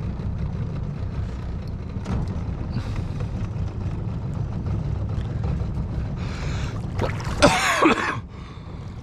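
Steady low rumble of a boat's outboard motor running, with a brief loud sound that falls in pitch about seven seconds in.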